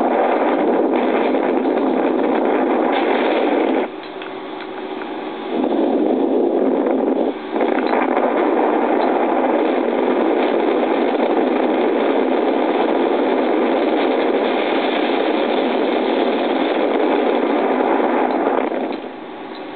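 Wind rushing and buffeting over the microphone high in the air under a parasail: a loud, steady, toneless rush that drops away briefly about four seconds in and again near the end.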